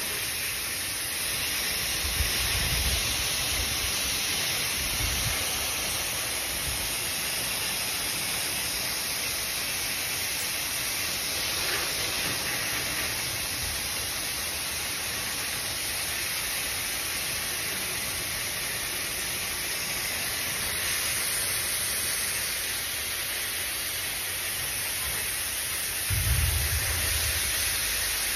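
Steady, even hiss, with a few short low thumps about two, five and twenty-six seconds in.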